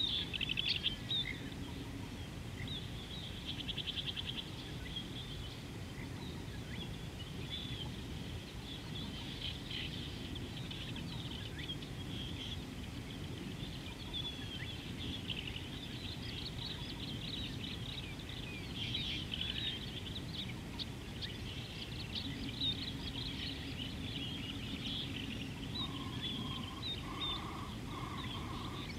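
Many small birds chirping and trilling in a busy, overlapping chorus over a steady low background rumble.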